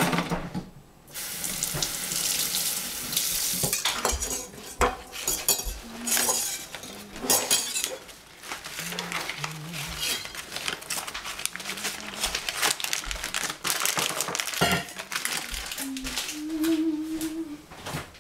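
A thin plastic bag crinkling and rustling as it is handled, with clicks and light clatter of kitchenware. A few seconds of hiss from a running tap starts about a second in.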